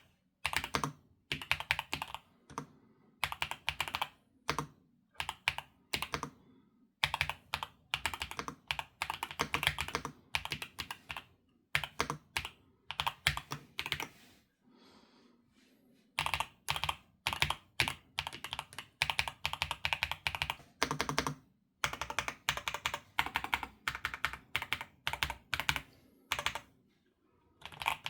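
Typing on a YUNZII B75 Pro mechanical keyboard: runs of rapid key clacks in bursts, with a short lull about halfway through.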